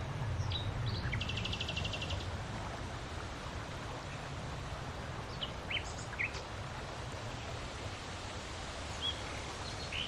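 Wind blowing steadily outdoors, with a low rumble, while small birds call: a quick trill about a second in, then scattered short chirps.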